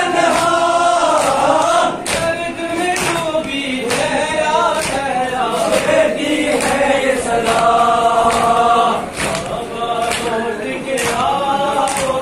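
A group of men chanting a Kashmiri noha (a Shia mourning lament) in unison. Sharp slaps of hands beating on chests (matam) sound under the singing, roughly once a second.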